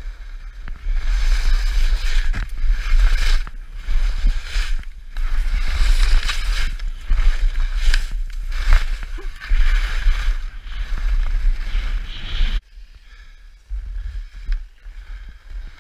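Skis sliding and scraping over snow through a series of turns, the noise swelling and easing with each turn, over steady wind noise on the microphone. It drops off for about a second near the end, then the ski noise picks up again.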